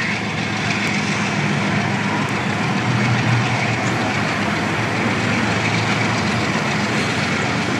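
Crude-oil tank cars of a Canadian Pacific freight train rolling past on the track below: a steady rumble of steel wheels on rail.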